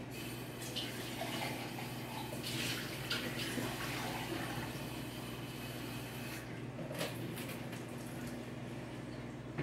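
Faint hiss of water, over a steady low hum, with a few light knocks.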